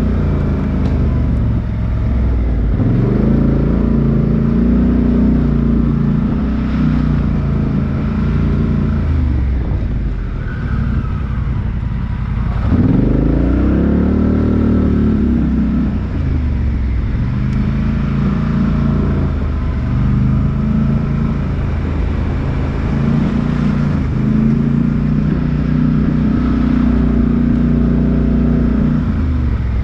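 Off-road 4x4's engine revving up and falling back again and again in surges of a few seconds each, under load on a step climb. The biggest surge comes about halfway through.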